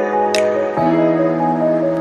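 Background music: soft sustained chords under a simple melody, the chord changing about a second in.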